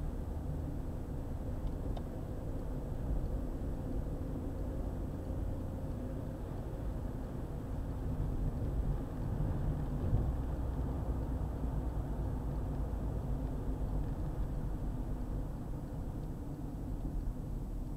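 Car driving on a highway: a steady low rumble of road and engine noise, swelling a little about halfway through.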